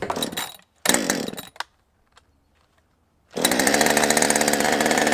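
A chainsaw comes in loud about three and a half seconds in and runs steadily, its freshly sharpened chain about to be tried on firewood. Before it there are a few short sounds in the first second and a half, then a pause.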